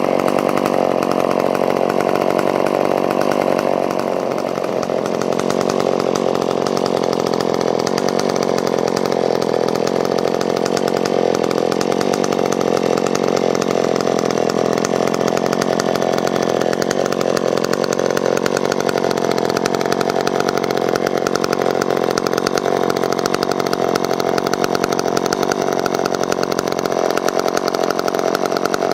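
McCulloch Pro Mac 10-10 vintage two-stroke chainsaw running steadily, with a brief dip in engine sound about four seconds in.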